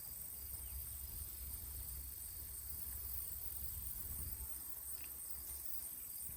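Steady high-pitched chirring of insects, with faint chirps repeating evenly, over a low rumble.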